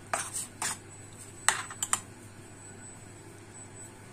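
Metal spoon clinking against the side of a stainless steel pot while stirring a thick tomato sauce: about six sharp taps in the first two seconds, then the tapping stops.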